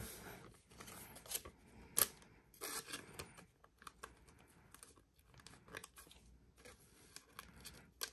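Faint rustling and light clicks of a trading card being worked into a soft plastic card sleeve, with a sharper tap about two seconds in and a short rustle about a second later.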